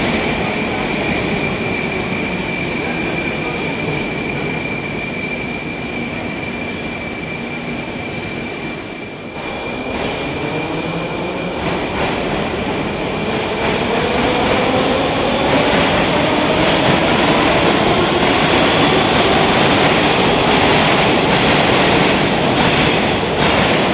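Moscow Metro train pulling away: the whine of its traction motors rises steadily in pitch over continuous rolling rumble. A steady high-pitched tone holds through about the first half.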